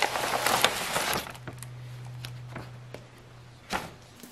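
Glossy printed mailer bag rustling and crinkling as a stack of papers and a plastic-wrapped sticker book slide out of it, dying down after about a second. A few light ticks follow, and one sharper click near the end.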